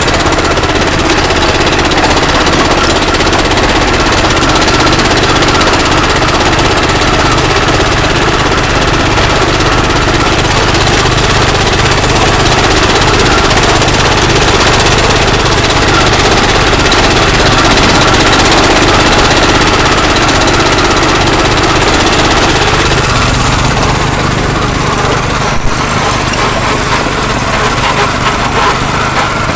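Wheel Horse garden tractor engine running steadily and loud under load as the tractor crawls over rough trail, with one sharp knock a few seconds before the end.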